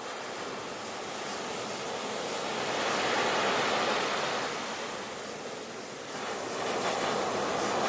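Ocean waves breaking on a shore: a steady rush of surf that swells about three seconds in, eases off, then builds again near the end as the next wave comes in.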